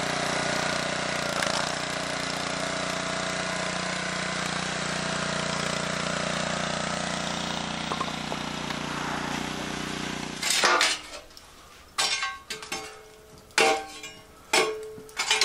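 Small gasoline engine of a 24-ton log splitter running steadily, then cutting off about ten seconds in. A handful of sharp struck, ringing notes follow.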